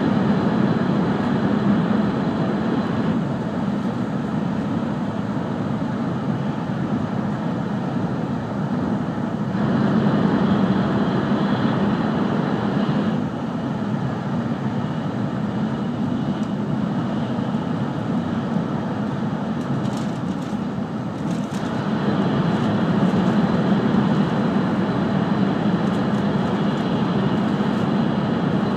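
Running noise of an E5 series Shinkansen heard inside the passenger cabin at speed: a steady low rumble and rush. It grows louder for a few seconds about ten seconds in, and again from about twenty-two seconds on.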